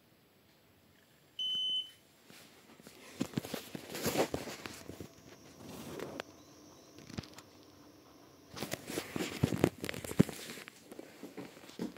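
A single short electronic beep from a heat-recovery ventilation unit, a steady high tone lasting about half a second about one and a half seconds in, given as the unit is being paired with its app. After it, a run of irregular knocks and rustles of handling.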